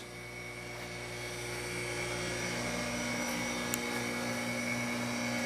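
Harig Super 612 surface grinder running, its spindle motor giving a steady hum with a thin whine, slowly growing a little louder.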